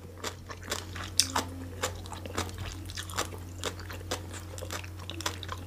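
Close-miked chewing: a mouthful of food chewed with many small, irregular crunches and wet clicks.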